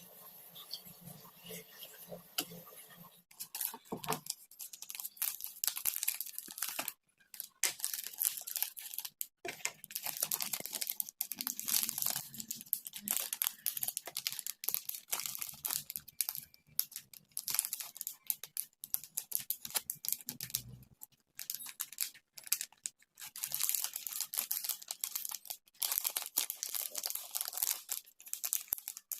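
Close, dry crinkling and scratching in irregular runs, like paper or plastic being handled or rubbed.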